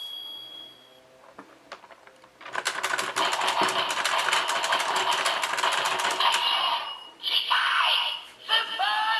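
DX Geartlinger toy morpher playing its sound effects: a fast, even run of clicks, about ten a second, over a rushing noise for nearly four seconds. A short tone and more electronic toy sounds follow near the end.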